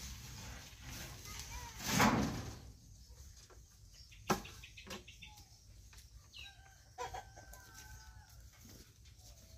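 A short rushing splash about two seconds in as a plastic basin is emptied into a cattle trough, then a single sharp knock. Fowl and birds call in the background, with a couple of drawn-out whistling calls near the end.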